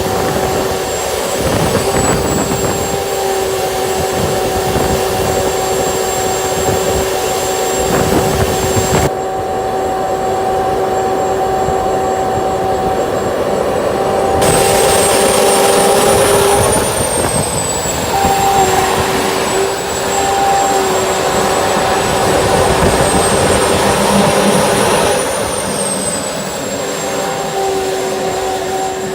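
Jet turbine engine of a 1966 Batmobile running with a steady whine. Its high-pitched whine rises and falls twice as the turbine spools up and back down.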